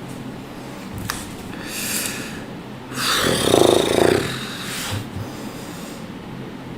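A person breathing heavily: a hissing breath in about two seconds in, then a loud, rough breath out like a groan about a second later.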